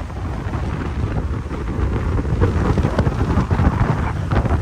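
Wind buffeting the phone's microphone over the low rumble of a vehicle on the move, a loud, dense, unbroken roar.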